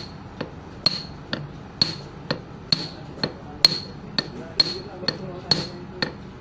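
A hammer tapping a steel driver bar with light, even blows about twice a second, alternating stronger and softer, each with a short metallic ring. The blows drive a part home into the bore of a Komatsu SAA6D140E-5 engine's water pump housing.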